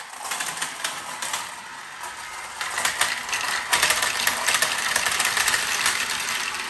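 Glass marbles rolling and clattering through a plastic Galt Super Marble Run track, with a stream of rapid clicks and rattles as they drop through the chutes and swirl around the red plastic funnel bowl. The rolling gets louder and fuller about two and a half seconds in, as more marbles fill the bowl.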